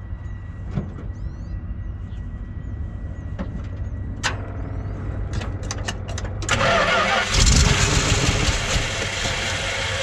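Carbureted gasoline engine of an old Dodge Ram pickup being cranked on the starter after gas was poured into the carburetor, coughing as if it wanted to run. A few sharp clicks come first, and the cranking starts about six and a half seconds in.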